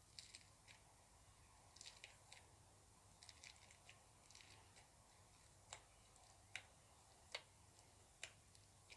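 Slime being squeezed and pressed, giving off small clicks and pops. These come first in little clusters, then as four sharper single pops about a second apart.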